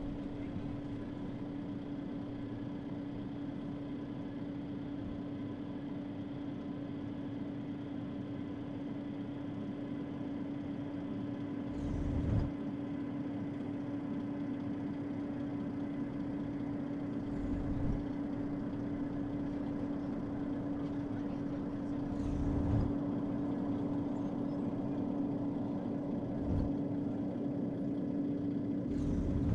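A steady droning hum carrying one strong low tone, broken by five dull low thumps spaced a few seconds apart, the first about twelve seconds in.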